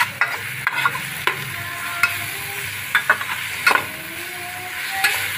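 Onion-garlic masala paste with spices frying in oil in a nonstick pan on low heat, a steady sizzle. A spatula stirs and scrapes it against the pan in irregular strokes. This is the bhuna stage, frying the masala until the oil separates.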